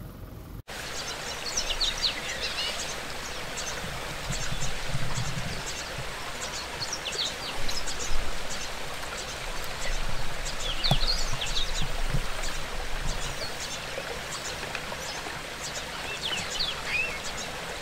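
Outdoor bush ambience: scattered short bird chirps and calls over a steady hiss.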